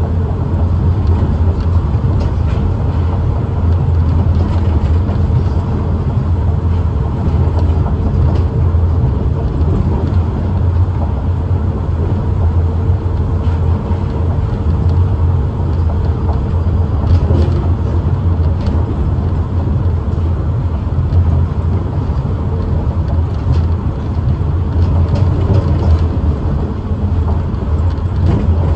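Osaka Metro New Tram, a rubber-tyred automated guideway train, running at speed along its guideway, heard from inside the car: a steady low rumble with a faint steady hum over it.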